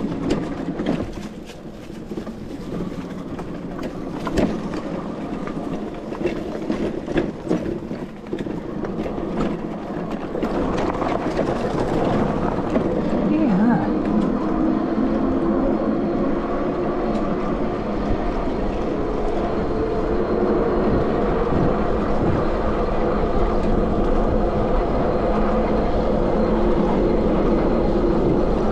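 Sondors MadMods electric bike ridden over a bumpy dirt trail, its frame rattling and knocking. About twelve seconds in it rolls onto pavement, and the knocks give way to a louder, steady running hum.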